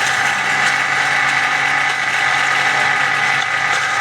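Electric grinder machine running steadily, its motor giving a constant high whine.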